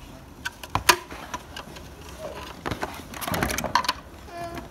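White plastic storage-box panels clacking and knocking together as they are handled, with sharp clicks about a second in. Around three seconds in, cardboard packaging rustles and scrapes as hands reach into the box.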